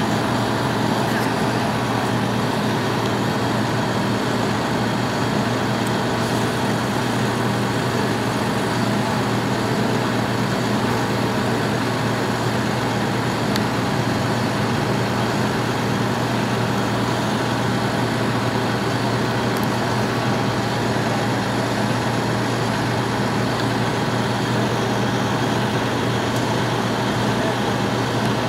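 Aerial ladder fire truck's engine running at a steady, unchanging pitch while the raised ladder is held up.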